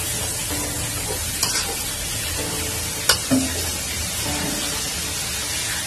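Grated coconut in palm-sugar syrup cooking in a wok with a steady sizzle, stirred with a metal spatula that knocks sharply against the pan twice, about one and a half and three seconds in.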